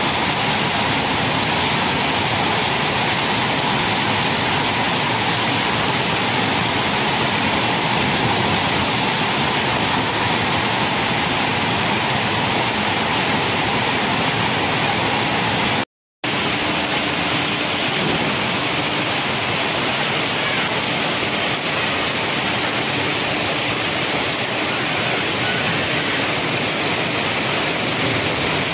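Heavy rain pouring down in a dense, steady hiss. The sound drops out for a split second about halfway.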